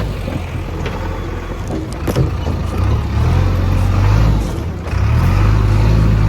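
Heavy diesel machinery engine running, its note dipping and picking up again a few times as the load changes, with a sharp knock about two seconds in.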